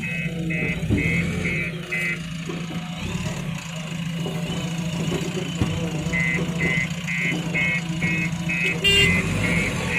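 Backhoe loader's diesel engine running steadily under work, with a reversing alarm beeping about three times a second for the first two seconds and again from about six seconds in.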